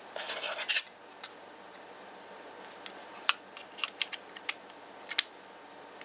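Samsung Wave phone being reassembled by hand: a short scrape as the battery and metal back cover are fitted in the first second, then a scatter of sharp clicks as the cover snaps into place.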